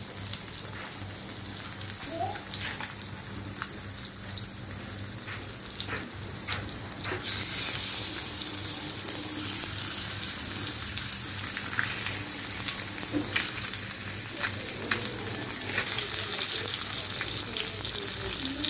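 Seasoned red snapper fillets sizzling in hot oil on a flat pan as they are laid in one after another. The sizzle grows louder about seven seconds in, with scattered crackles throughout.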